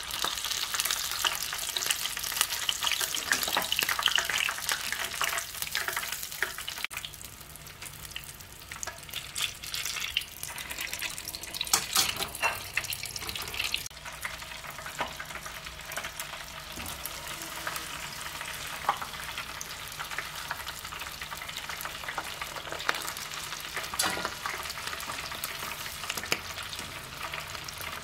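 Tempura-battered prawns deep-frying in hot oil: a dense crackling sizzle, loudest in the first few seconds and flaring up again briefly about twelve seconds in.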